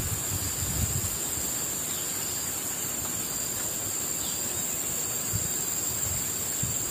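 Steady high-pitched drone of a forest insect chorus, continuous and unchanging.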